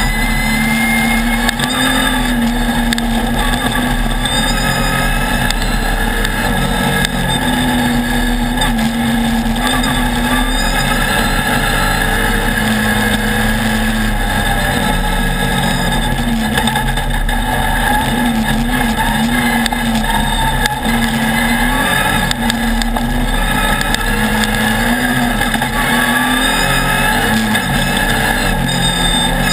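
Off-road race buggy's engine running hard at speed, its pitch rising and falling again and again with the throttle, over steady noise from the ride.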